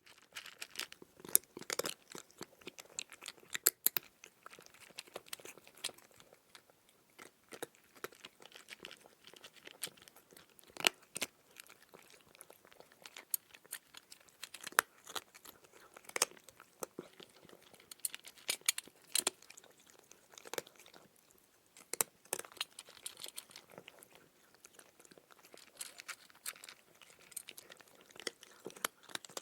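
Cat chewing and crunching dry kibble: irregular crisp crunches in quick runs, with a few louder bites now and then.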